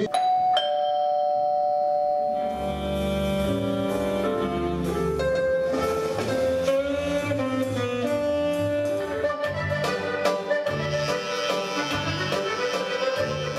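Instrumental background music: a held melody note opens it, then a bass line and a moving melody come in about two and a half seconds in and run on.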